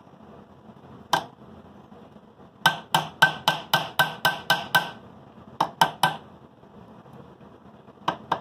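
Small ball-peen hammer tapping the metal wipers of an Athearn model-locomotive motor clip flat against the anvil of a bench vise, flattening them so they no longer touch the frame. A single tap, then a quick run of about ten taps at roughly four a second, three more, and another run starting near the end.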